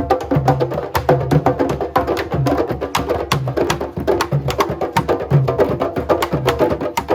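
Music with a busy, steady percussion beat of sharp clicking strokes over a pulsing bass line.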